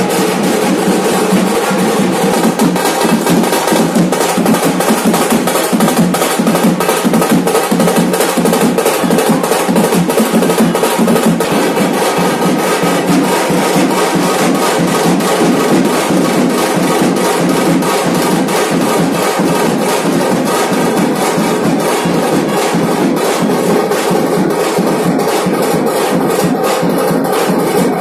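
Punjabi dhol drums playing a fast, steady beat, loud and unbroken.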